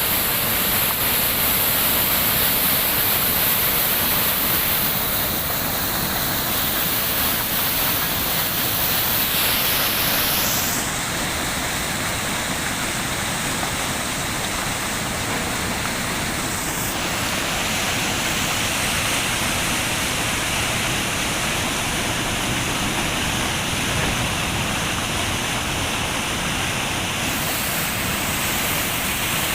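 Floodwater rushing past a bridge in a steady, loud wash of noise; the tone shifts slightly a couple of times.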